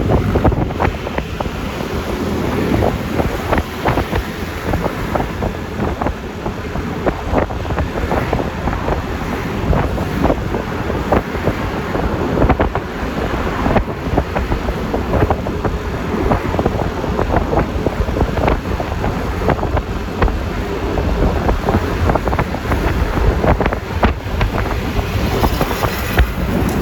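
Wind buffeting the microphone on a moving Yamaha Lexi LX 155 scooter, crackling and gusting over a steady rush of engine and road noise.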